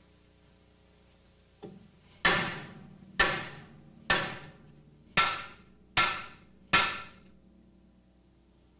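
A large hammer strikes the steel steering spindle of a GM double A-arm front suspension: one light tap, then six hard blows about once a second, each ringing briefly. The blows are meant to shock the upper and lower ball joint studs loose from their tapers in the spindle.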